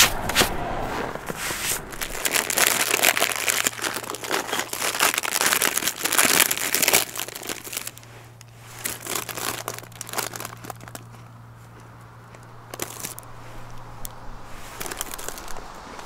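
Snow crunching and crinkling close to the microphone: dense for about the first seven seconds, then thinning to scattered crackles.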